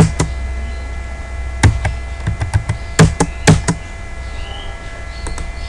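Computer keyboard keys being struck while a short command is typed: about a dozen sharp clacks in quick groups over the first four seconds, then only a couple. A steady low hum runs underneath.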